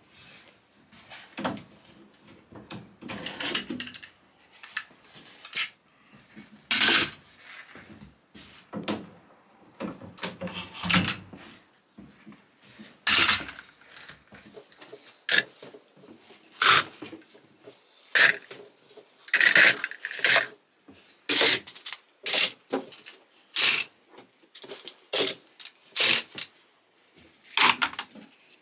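Metal bar clamps and plastic quick-grip clamps being set down one after another on a workbench: a run of sharp metallic clanks and clatters, about one a second through the second half.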